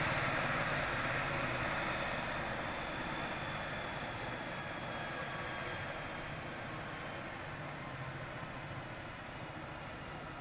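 Eurocopter EC135 rescue helicopter on the ground with its turbines running. The turbine whine slides slowly down in pitch and the whole sound fades steadily as the engines and rotor wind down.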